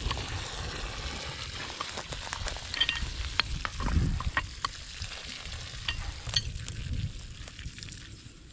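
Crackling hiss with scattered sharp clicks and scrapes: a metal valve key turning and clinking on the cap of a drain valve on a buried PVC water line.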